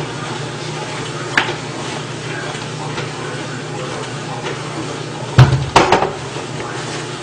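Items being handled in a refrigerator: a light knock about a second and a half in, then a louder clatter of containers knocking together for about half a second near the end, over a steady low hum.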